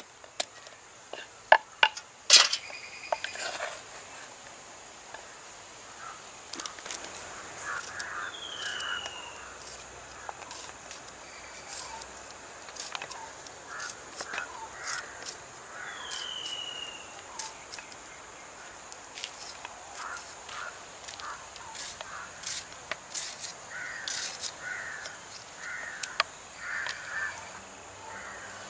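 Pestle pounding jackfruit seeds in a mortar, a few sharp strikes in the first few seconds, then light knife clicks and taps against a wooden block as small onions are peeled and cut. Crows caw repeatedly, and a bird gives a short falling whistle twice.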